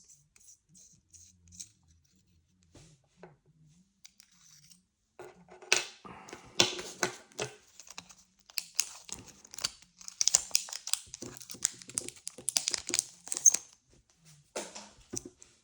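Handling noise from a pen and a gel-pen refill: a few faint clicks, then from about five seconds in a dense run of crinkling, scratching and small clicks, which dies down shortly before the end.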